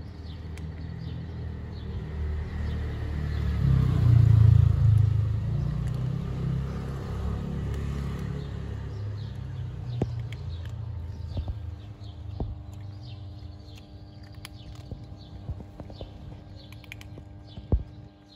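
A vehicle passing along the street: a low rumble that swells to its loudest about four seconds in and fades away by about eleven seconds. Birds chirp faintly in the later part, with a few sharp clicks.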